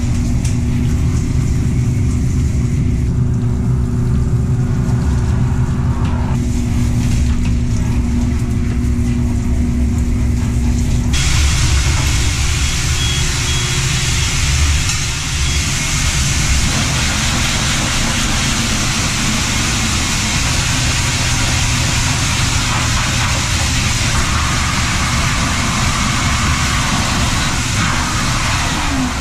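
A self-service dog wash station's spray hose and pump run with a steady hum. About eleven seconds in the station is switched over: the hum's tone stops and the blow dryer starts, giving a loud, steady rush of air through its hose.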